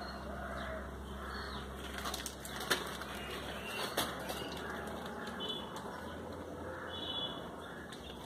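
Clear plastic bag rustling and crinkling as small rotary-tool accessories are handled, with a few sharp clicks, the loudest about two and a half and four seconds in.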